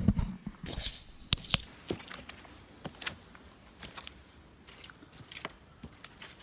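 Hikers' footsteps on a mountain trail: irregular scuffs and crunches, about two or three a second, with a louder knock right at the start.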